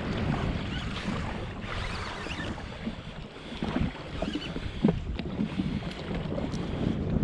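Wind buffeting the microphone and small waves slapping against the hull of a jetski at sea, with a few sharp knocks partway through.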